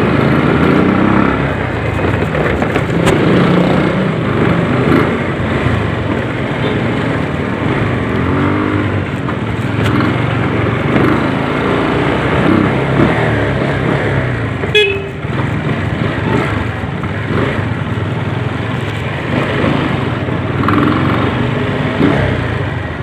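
Motorcycle riding in traffic: its engine runs steadily under road and wind noise, with other vehicles and horns sounding around it.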